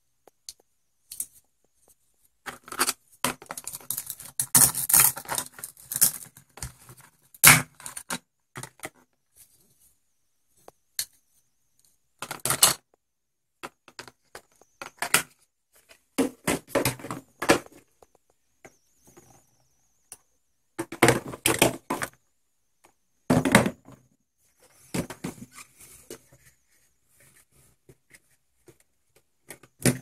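Plastic toy food and toy kitchen pieces being handled, with irregular clicks, knocks and scrapes on a hard tabletop in bursts with short pauses. There are short ripping sounds as the cut-apart toy food is pulled apart at its hook-and-loop joins.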